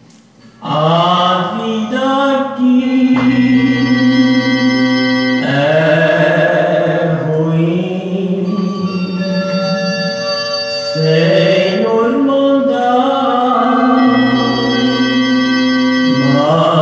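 A vinyl single playing on a turntable: a song with a male voice singing, wavering with vibrato, over steady held accompaniment notes. The music comes in about a second in after a brief stretch of quiet groove noise.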